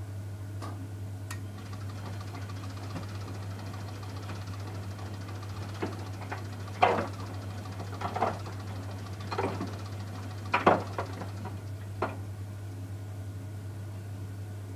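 Miele Softtronic W 435 Plus washing machine running early in its wash cycle: a steady low hum with a handful of irregular knocks and thuds in the middle.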